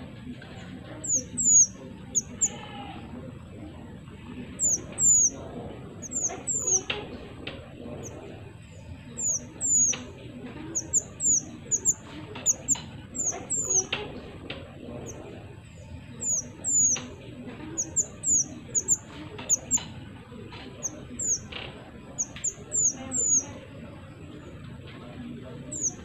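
Small minivet (mantenan mini) singing: thin, high, down-slurred notes given in quick runs of two to four, repeated over and over.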